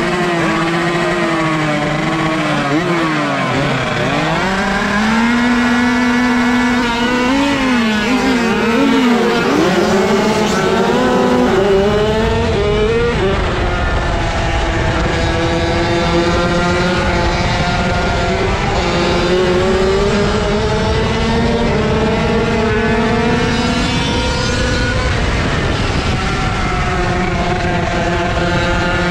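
125 cc motocross bike engine heard from on board, revving in short blips at first, then pulling away about four seconds in and climbing through the gears, its pitch rising and dropping back at each shift.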